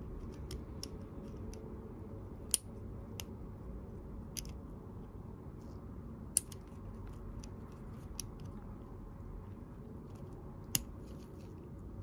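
Small sharp clicks and ticks of a thin pick tool working inside a plastic two-pin electrical connector. Three louder clicks come about four seconds apart, with fainter ticks between them.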